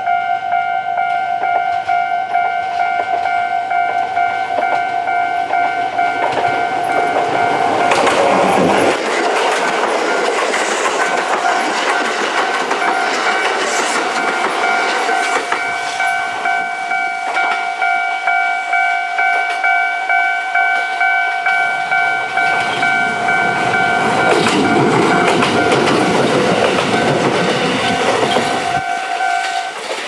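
A Japanese railway level-crossing alarm rings steadily as Kintetsu trains pass, a 30000-series Vista EX and then a 1437-series local. Their wheels clack over the rail joints. The alarm stops just before the end.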